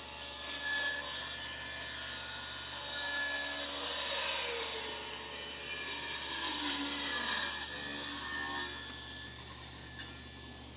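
Table saw with its blade tilted, ripping a corner off a square wooden turning blank, the blade cutting steadily. The cutting noise drops away about eight and a half seconds in, and a light knock follows near the end.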